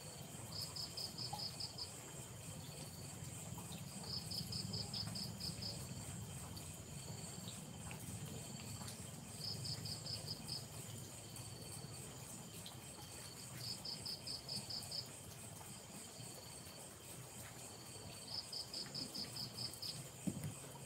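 Night insects calling: a cricket-like chirp of about seven or eight quick pulses in a row, repeated about every four to five seconds, over a steady high-pitched insect drone.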